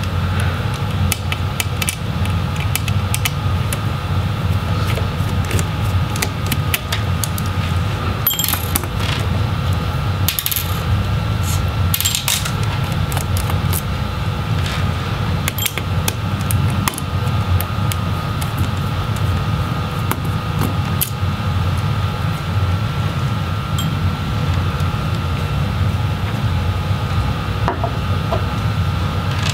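Small precision screwdriver backing tiny screws out of a laptop motherboard, with scattered light clicks and clinks of small screws and tools being set down. A steady low hum runs underneath.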